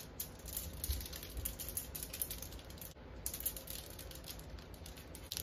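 Long manicured fingernails tapping and clicking against each other in a rapid, irregular run of light clicks.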